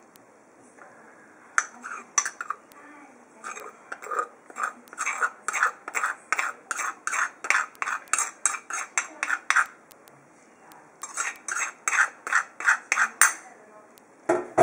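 Metal spoon scraping ground herb powder out of a stone mortar into a bowl, in quick repeated strokes, about two or three a second, with a pause of about a second roughly two-thirds of the way through.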